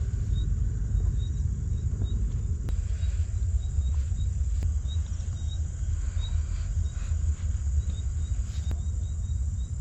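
Night insects in a forest: a steady high insect drone with crickets giving short repeated chirps, over a loud low rumble.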